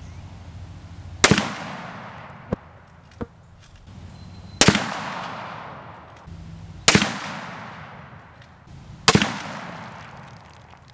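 Four shots from a sporterized Lee-Enfield No. 4 Mk 1 rifle in .303 British, two to three seconds apart, each followed by a long fading echo.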